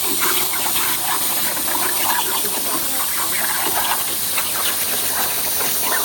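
CNC plasma cutter torch cutting 3 mm steel sheet: a steady, loud hiss of the plasma arc and air jet.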